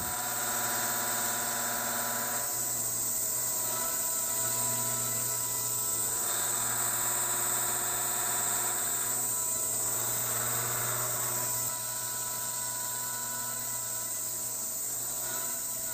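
Indexable high-feed face mill with double-sided carbide inserts roughing PX5 mould steel on a vertical machining centre, spindle at about 1,000 rpm. A steady droning cutting hum with a high hiss, dropping slightly in level about twelve seconds in.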